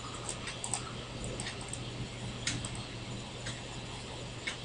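Computer mouse clicking: light, irregular ticks, roughly one every half second, over a faint steady hum, while a web page is scrolled.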